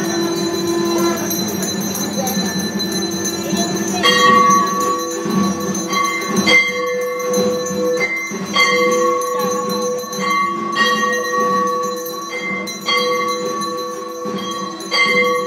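Puja bells ringing steadily in worship. From about four seconds in a louder ringing note comes in with a sharp stroke and repeats about every two seconds.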